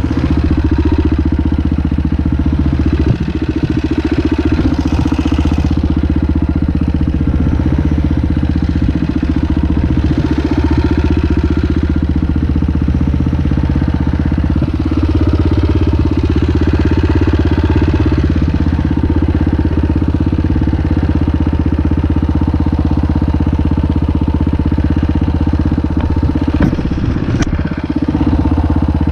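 Dirt bike engine idling steadily, with no revving.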